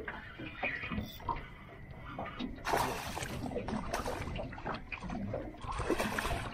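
Water splashing in two bursts, about three seconds in and again near the end, as a small mulloway (jewfish) is brought up to the surface at the boat.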